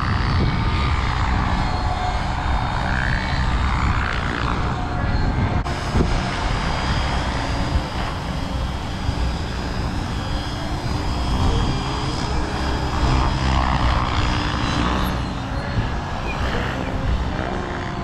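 Radio-controlled model helicopter flying, its rotor and motor whine rising and falling in pitch as it manoeuvres.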